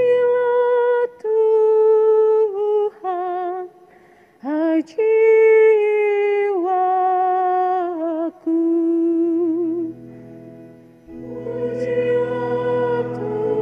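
A solo cantor singing a verse of the responsorial psalm unaccompanied, in long held notes with a slight vibrato. About eleven seconds in, the organ and more voices come in together.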